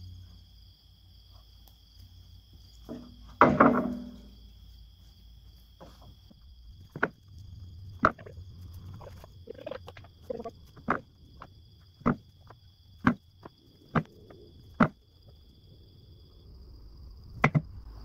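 Freshly sawn hemlock boards and stickers being stacked: a loud wooden clatter about three seconds in, then a run of sharp wooden knocks about once a second as boards are set down on the pile. Insects trill steadily behind.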